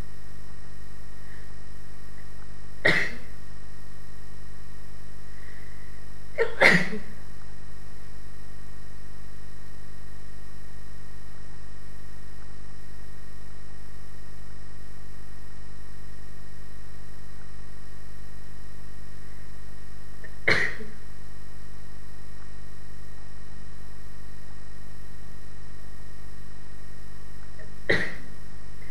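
A person sneezing four times in a sneezing fit, each sneeze short and sharp, with long gaps between them. Under the sneezes runs a steady background hum.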